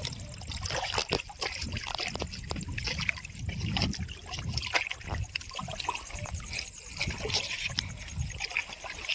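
Water splashing and trickling, with many small irregular splashes over an uneven low rumble.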